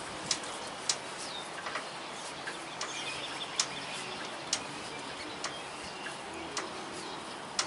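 Scattered, irregular light clicks from a rag and fingers working around the bead of a small lawnmower tire against its metal rim, over steady outdoor background noise with faint bird chirps.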